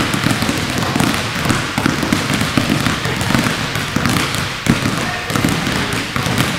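Several basketballs being dribbled at once on a gym floor: many overlapping, irregular bouncing thuds.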